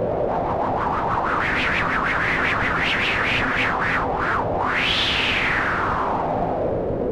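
Studiologic Sledge 2.0 synthesizer playing a noise patch through a swept filter: a hiss whose brightness wobbles up and down about three to four times a second, then sweeps up once and slowly falls back down near the end.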